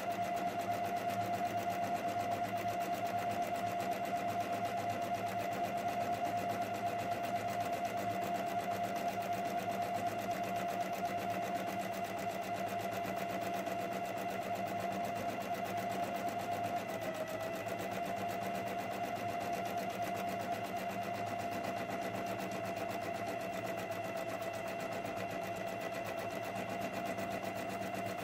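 Electric sewing machine running steadily, stitching a narrow zigzag hem along the edge of a fabric ruffle. Its speed dips briefly about seventeen seconds in, then it carries on.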